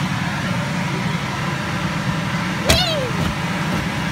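Steady drone of the electric blower fans that keep inflatable bouncy castles inflated. About two-thirds of the way through, a sharp click comes with a short high squeal that falls in pitch.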